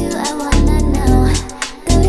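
Background music: a song with a sung melody over heavy bass notes and a regular beat.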